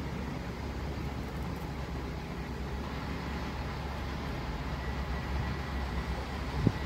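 Steady low outdoor rumble with a faint thin whistle-like tone in the last couple of seconds, and a single short thump near the end.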